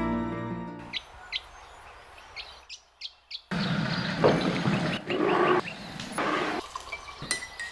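A few short, high chirps like a small bird calling, then a louder stretch of noise with more quick chirps running through it.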